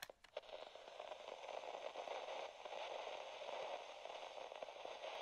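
Faint, steady crackling static hiss with scattered small clicks.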